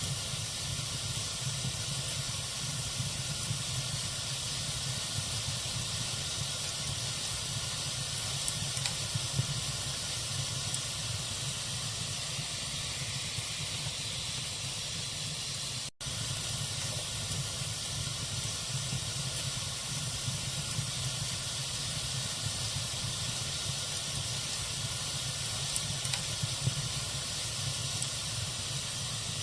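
Log fire burning in a fireplace: a steady hiss with a few faint crackles. The sound drops out for an instant about halfway through.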